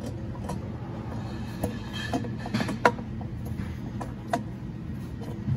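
Short metal knocks and clicks as a turbocharger is worked by hand onto its exhaust manifold against a freshly notched engine block, the sharpest knock about three seconds in, over a steady low hum.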